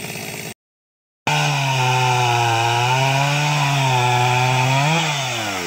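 Two-stroke chainsaw running; after a brief break of silence it runs at high revs, cutting through a log, the engine note sagging slightly under load. Near the end the revs rise briefly, then fall away as the throttle is let off.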